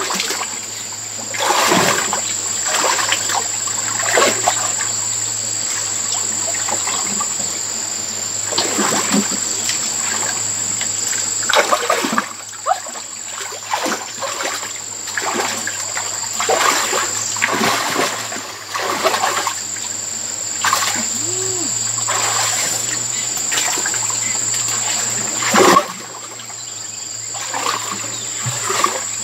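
Shallow muddy water splashing and sloshing irregularly as hands grope through it along the bottom, with one louder splash about three-quarters of the way through. A steady high, thin whine runs behind it.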